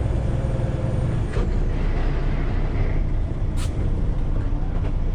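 Semi truck cab noise while driving: steady low engine and road rumble, with a click about a second and a half in and a short high hiss about three and a half seconds in.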